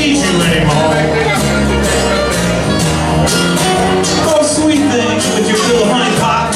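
Live blues band playing, with electric bass and acoustic guitars over a steady beat.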